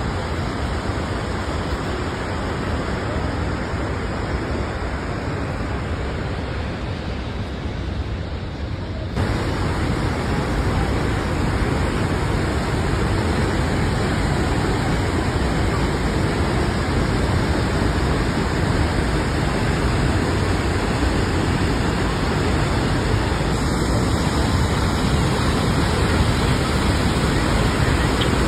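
Waterfall: a steady rush of falling water, which grows louder and fuller about nine seconds in.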